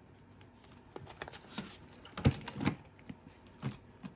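A coiled planner being handled and lifted off a wooden desk: several knocks and rustles, the loudest a little over two seconds in.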